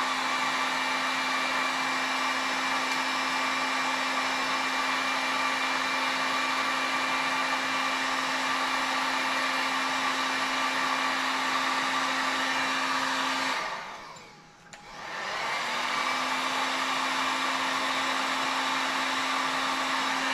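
Electric heat gun running: a steady blowing rush with a low motor hum, shrinking heat-shrink tubing over a glued paracord joint. About two-thirds of the way through it is switched off and winds down, then is switched back on and runs again.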